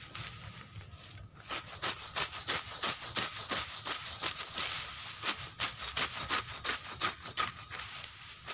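Grass being cut by hand with a sickle: quick, crisp slicing strokes through the stems, several a second, with the rustle of the gathered grass, picking up about a second and a half in.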